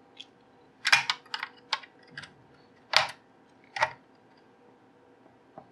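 Irregular sharp clicks and light taps of small tools and parts being handled, about ten of them, loudest about a second in and around three seconds in.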